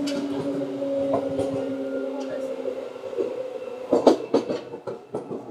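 Seibu 2000 series electric train running, with a steady multi-tone hum from the drive that fades out about three seconds in. About four seconds in comes a short cluster of sharp knocks.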